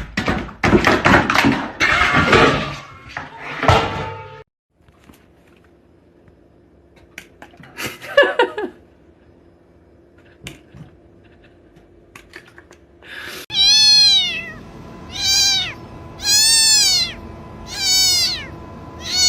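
A domestic cat meowing five times in a row near the end, each meow a drawn-out call that rises and falls in pitch. In the first few seconds, a loud stretch of clattering and thumps comes before them.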